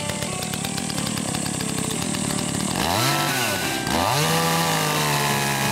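Two-stroke petrol chainsaw running unevenly at low speed. About three seconds in it revs up and drops back once, then is throttled up again and held at full speed as the chain bites into a dry tree stump.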